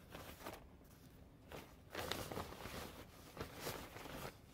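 Rustling and scraping of a thin nylon backpack and boxing gloves being handled, fainter at first and busier from about two seconds in.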